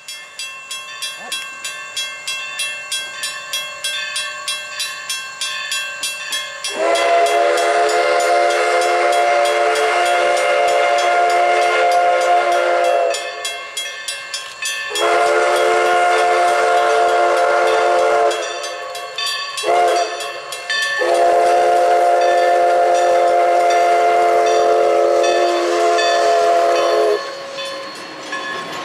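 Everett Railroad No. 11, a 1920 2-6-0 Mogul steam locomotive, working toward the listener with about three exhaust beats a second. Its chime whistle then blows two long blasts, a short one and a final long one, the grade-crossing signal. The coaches' wheels rumble past near the end.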